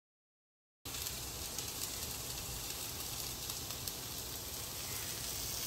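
Chickpeas frying in oil in a pan with onion and curry leaves, a steady sizzle with fine crackling that starts suddenly about a second in.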